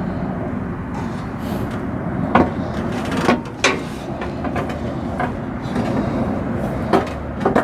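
A few short, sharp metallic knocks and clinks from tools and bolts being handled against the skid plate and the truck's underside. They come singly, spread through the few seconds, over a steady low rumble.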